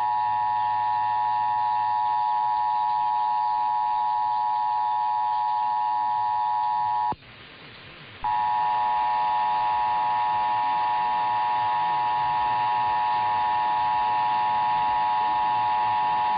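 Emergency Alert System attention signal: the steady two-tone EAS alarm. It sounds for about seven seconds, breaks off for about a second, then sounds again until the end. It is the alert tone that opens a broadcast test of the alert system.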